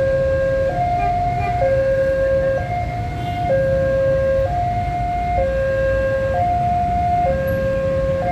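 Railway level-crossing warning alarm sounding from a pole-mounted loudspeaker horn: two tones, one low and one high, taking turns about once a second. It is the warning that a train is approaching the crossing.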